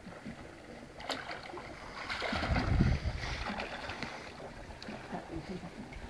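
Pool water splashing and lapping as two people swim, louder for a second or so about two seconds in.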